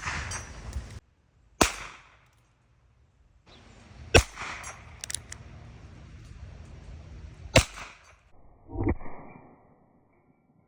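A .22 Long Rifle single-action revolver, a Heritage Rough Rider, firing three sharp shots a few seconds apart, with a few light clicks between the second and third; near the end comes a duller, lower thump.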